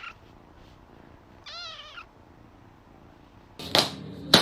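A cat meows once, a short wavering call about a second and a half in. Near the end two loud, sharp knocks come in.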